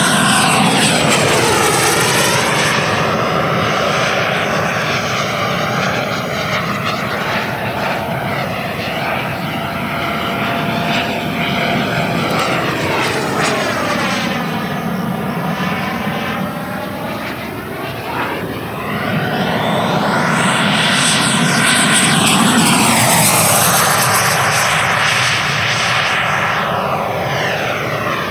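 100 mm WeMoTec Midi EVO electric ducted fan of a Black Horse Viper XL RC jet model running at high power in flight, a continuous jet-like rush that swells and fades as the model flies past, loudest at the start and again about twenty seconds in, with a sweeping, phasing quality on each pass.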